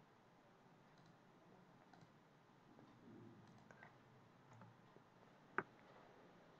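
Faint clicks of a computer mouse and keyboard in a quiet room, with one sharper click about five and a half seconds in.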